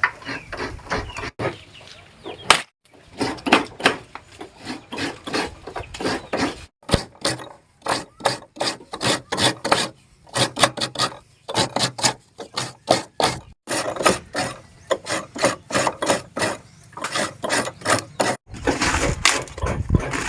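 Rhythmic scraping or rasping strokes on wood, about three a second, with brief pauses and a denser, louder stretch near the end: hand food preparation with a utensil.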